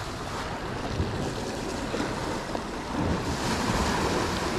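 Sea waves washing against the shore, with wind buffeting the microphone; the surf grows a little louder about three seconds in.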